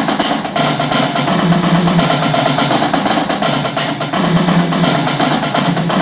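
Drum kit tom-toms played in a fast, unbroken run of triplet-based sticking strokes moving around the toms, the drum pitch stepping between higher and lower toms.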